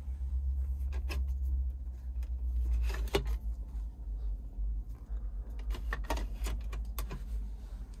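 Plastic clicks and snaps of a 1997 Lexus LX 450's pop-out dash cup holder being pushed, released and handled, with the loudest click about three seconds in and a run of smaller clicks near the end, over a low steady rumble.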